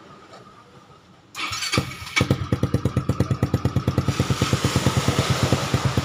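Yamaha Mio MXI 125 scooter's single-cylinder engine, bored up to 160cc and fitted with an aftermarket exhaust, started for its first sound check after the build. It cranks briefly about a second in, catches about two seconds in and settles into a steady, quick-pulsing idle.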